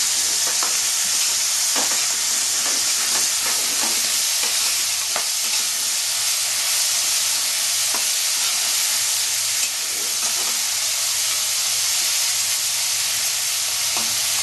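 Prawns sizzling in hot mustard oil in a kadai over a full flame, frying until they turn red. They are stirred with a metal spatula that knocks and scrapes against the pan now and then.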